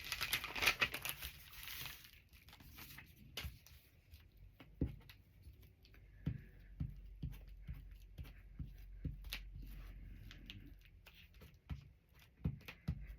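Magazine paper being handled: a burst of paper rustling in the first two seconds, then scattered light taps and clicks as pieces are set down and pressed.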